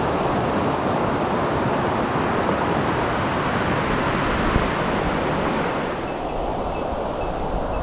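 Steady rushing noise heard while riding a bicycle on a mountain road, the kind made by wind over the microphone and nearby moving water. About six seconds in the hiss dulls and drops slightly.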